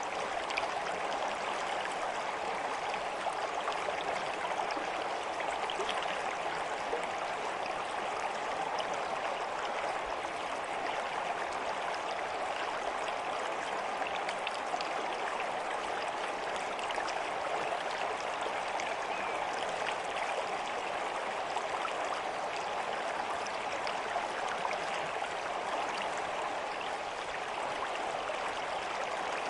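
Running water flowing steadily, an even rush with small scattered splashes.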